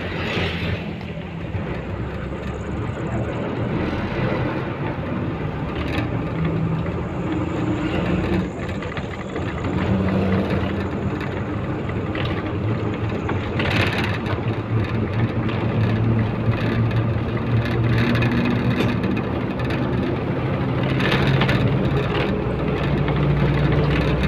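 Engine and road noise inside a moving bus: a steady rumble with a low hum that rises and falls in pitch as the bus changes speed.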